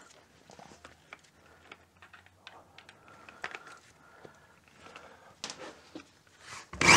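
Faint scattered clicks, taps and rustling of hand tools being handled, with no power tool running. Near the end a rising swoosh leads into loud music.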